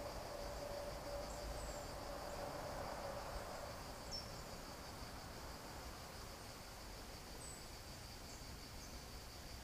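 Insects chirring in a steady, high-pitched drone, with a few short, falling bird chirps over it. A faint low hum fades out over the first few seconds.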